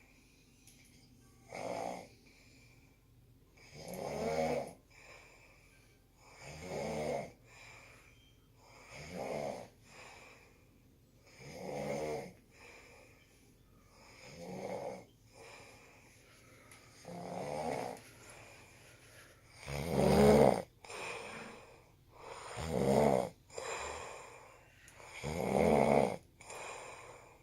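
Steady rhythmic snoring: a rough, rattling snore about every two and a half to three seconds, with a softer breath between. The snores grow louder over the second half.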